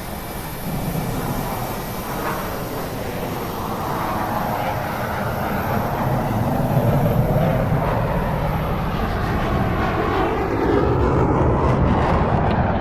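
Droning engine noise like an aircraft's, growing gradually louder.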